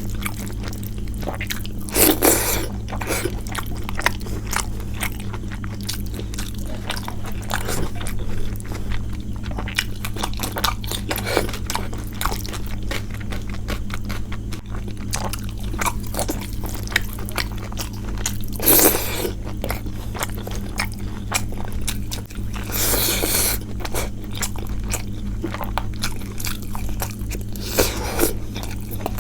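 Close-up eating sounds of a rice-and-curry meal: steady chewing and small wet mouth clicks, with about four louder crunchy bites spread through. A steady low hum runs underneath.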